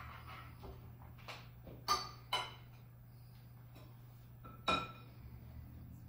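Kitchen utensils clinking against a plate and a glass mixing bowl: three sharp, ringing clinks, about two seconds in, half a second later, and near five seconds, over a steady low hum.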